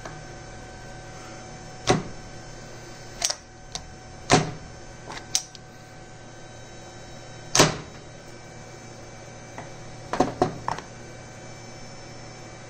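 Sharp metallic clicks and clunks from a home-made automatic lathe chuck's mechanism as its internal parts are shifted: single knocks spaced a second or two apart, then a quick run of several clicks near the end, over a steady hum.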